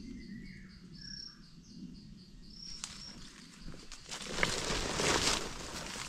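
Forest sounds: a high insect call pulsing about four times a second, with a few faint bird chirps, for the first three seconds. Then louder rustling of footsteps through dry leaves and undergrowth for about a second and a half.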